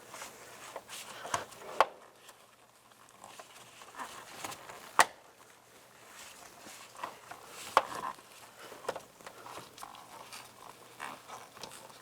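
Hands working a mirror wiring harness and its grommet: scattered light clicks, taps and rustling of plastic and wire, with one sharper click about five seconds in.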